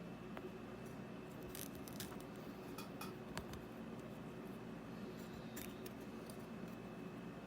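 Small plastic clicks and snaps of Kailh Choc low-profile keyboard switches being worked in a switch opener, in a few scattered clusters, the sharpest about three and a half seconds in, over a steady faint hum.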